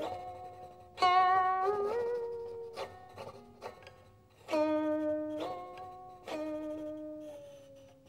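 Guqin, the seven-string Chinese zither, played solo: slow, separate plucked notes left to ring and fade, with the pitch sliding up on a note about a second in and sliding down on a held note near the end.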